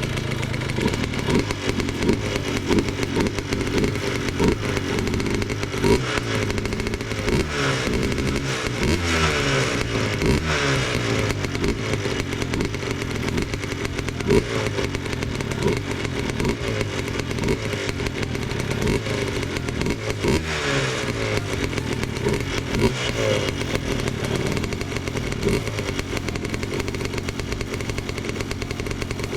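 Yamaha Blaster 200 big-bore two-stroke single-cylinder engine running at idle, revved up and back down several times, most clearly about eight to eleven seconds in and again around twenty seconds in.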